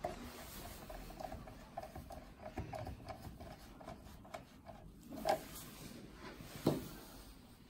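Hands handling wires and tools on a workbench: light rustling and scraping, with two sharper knocks in the second half. A faint tone pulses several times a second through the first half.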